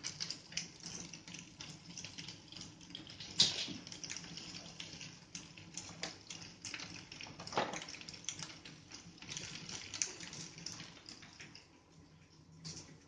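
Small plastic scoop clattering and skidding on a tiled floor as a cat bats at and pounces on it: irregular clicks and knocks, the loudest about three and a half and seven and a half seconds in.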